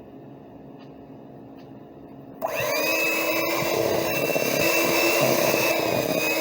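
Electric kitchen mixer switched on about two seconds in, quickly coming up to speed and then running steadily, mixing flour into peanut butter cookie dough.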